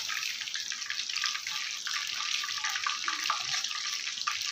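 Marinated chicken pieces deep-frying in hot oil in a wok: a steady sizzle with many small crackles.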